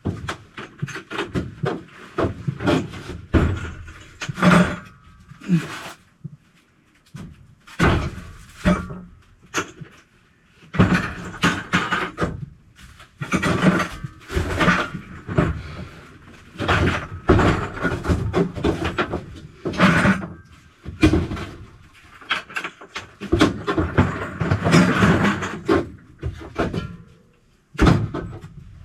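Irregular knocking, clanking and rattling of tools and parts being handled, coming in short clusters with brief pauses between them.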